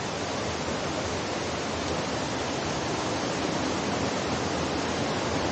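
Steady rushing of a river, an even wash of water noise with no breaks.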